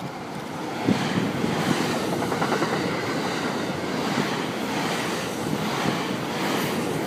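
Thunderbird limited express electric multiple unit passing close by at speed, growing louder over the first second as the train draws level, then a steady rush of running noise with its wheels clicking over the rail joints.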